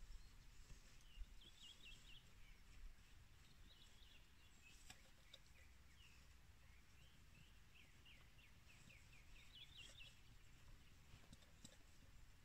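Faint songbirds singing in the forest, with repeated short high chirps and quick falling runs of notes, over a faint low rumble of wind.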